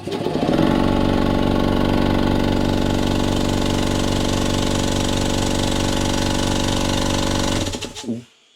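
Electric air compressor starting up on being switched on, its motor and piston pump running steadily with a fast even pulse for about seven and a half seconds, then shut off and winding down.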